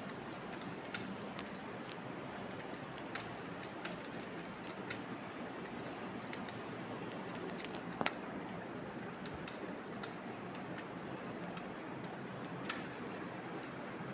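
Slow, irregular key presses on a computer keyboard: single clicks spaced unevenly, a beginner's hesitant typing, with one louder keystroke about eight seconds in, over a steady background hiss.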